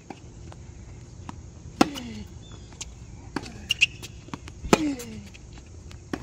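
Tennis rally on an outdoor hard court: the ball is struck by rackets and bounces off the court, sharp pops about every second and a half, each with a short falling ring. Fainter clicks of footsteps come in between.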